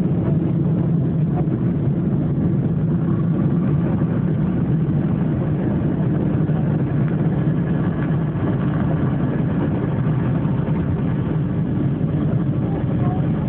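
Steady low rumble of engines and rushing air inside a passenger plane's cabin as it takes off, unchanging in level.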